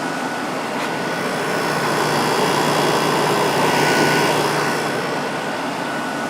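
2002 Whirlpool 5,000 BTU window air conditioner running in cool mode with its fan on high and its Rechi Precision compressor running: a strong, steady rush of air with a thin steady whine, swelling slightly midway.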